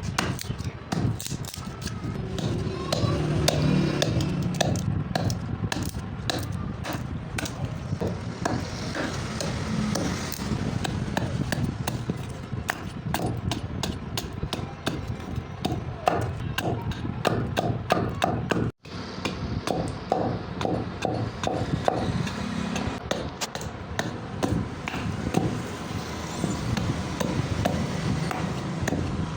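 Repeated hammer blows on steel, several a second and uneven in rhythm, over a steady low hum. The sound cuts out for an instant about two-thirds of the way through, then the hammering goes on.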